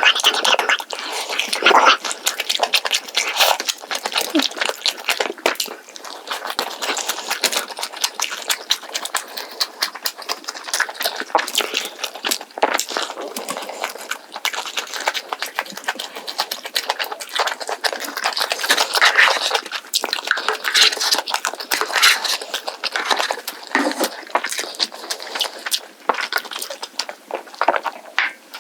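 Close-miked eating: continuous wet chewing and crunching of roast chicken and scorched rice (nurungji), with many irregular crackling clicks.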